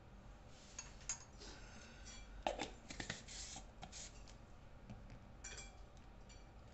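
Small ingredient containers and their caps being handled and opened over a mixing bowl: a cluster of clicks and knocks, loudest about two and a half seconds in, and a few more clicks about five and a half seconds in.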